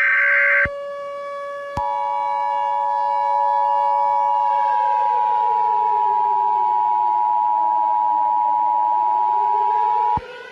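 The last data burst of an Emergency Alert System header, then the two-tone EAS attention signal: a steady pair of close tones lasting about eight seconds and stopping just before the end. Under it a lower drone slowly sinks in pitch and rises again, like a slow siren.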